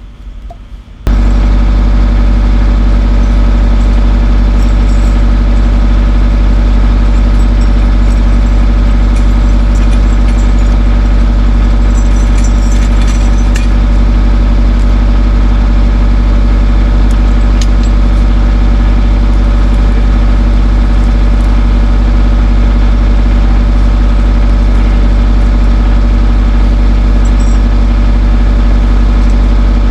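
Skid steer engine running loudly at a steady, unchanging speed, coming in abruptly about a second in.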